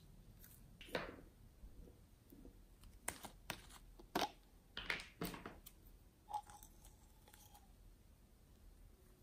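Small handling sounds of slime-making: a run of short clicks, taps and crackles from a plastic spatula working slime in a glass baking dish and from handling a plastic glitter bottle, clustered between about three and five and a half seconds in.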